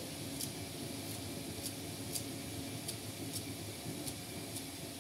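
Steady hiss of tomato masala cooking in a karahi on a gas stove, with light, sharp clicks about twice a second as a knife cuts fresh coriander leaves into the pan.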